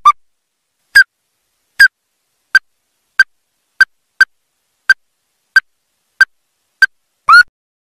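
Ruddy-breasted crake calling: a series of about eleven short, sharp notes, one every half to three-quarters of a second, ending with a slightly longer note near the end.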